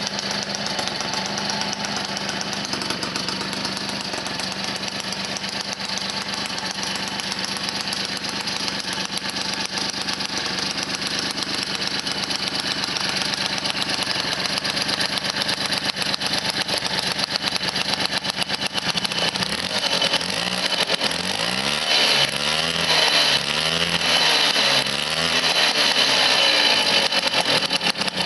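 Motobécane 51 VS moped's two-stroke 50 cc single-cylinder engine, freshly rebuilt, running steadily at idle. About two-thirds of the way in it is revved up and down in several quick blips.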